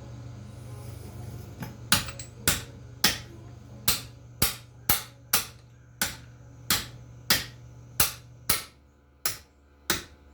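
Hammer blows on metal, about two a second, starting near two seconds in, each with a short ring: tapping a connecting-rod cap loose on a seized 1963 Austin Healey six-cylinder engine.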